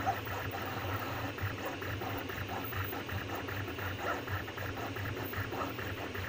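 Anycubic Kossel delta 3D printer's stepper motors whining in quick, constantly changing short chirps as the head moves while printing, over a steady low hum.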